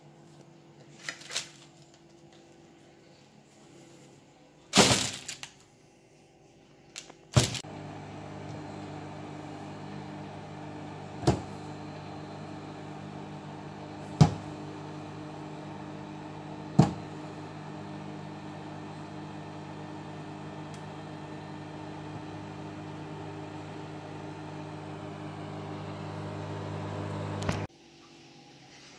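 Microwave oven running with a steady hum for about twenty seconds, then cutting off suddenly near the end. Sharp knocks come before it starts, and three sharp cracks sound while it runs.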